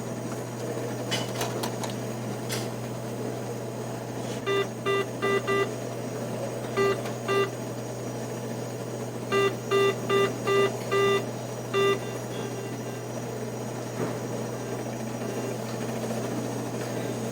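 ATM keypad beeping as keys are pressed: short identical beeps in quick groups of four, two, five and one, each confirming a key press, over a steady machine hum. A few sharp clicks come in the first few seconds.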